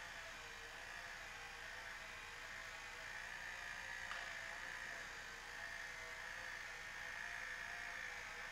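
Faint, steady whir of a small electric motor driving a kinetic light sculpture as it moves, with a thin hum that wavers slightly in pitch.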